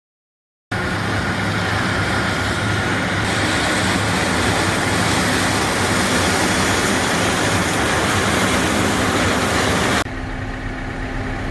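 Loud running of a harvest-season vehicle engine under way, an even rush of noise over a low hum; about ten seconds in it cuts to a quieter, steadier engine hum.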